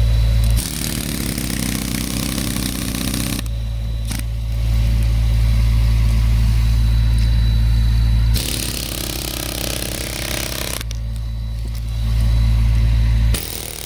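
Pneumatic air chisel (air hammer) working into a tree root, with a loud, steady low buzz from the hammering. The buzz breaks off twice for a few seconds of hissing rush, then starts again.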